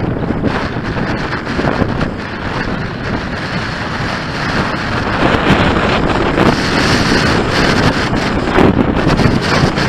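Strong gusty wind of 20 knots or more buffeting a glasses-mounted camera's microphone: a loud, rumbling rush that swells and eases with the gusts, a little louder from about halfway through.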